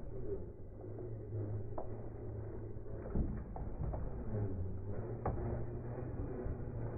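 Radio-controlled Axial Jeep Cherokee crawler driving: a steady low drone broken by about four sharp knocks, the loudest a little past three seconds in.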